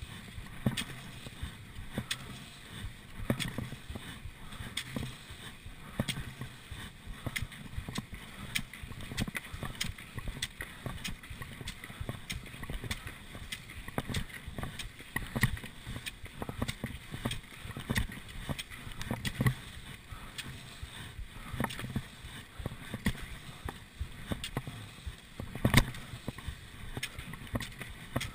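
Classic cross-country skis gliding and scraping in groomed tracks, with repeated knocks and clicks of pole plants and strides, and one sharp knock near the end.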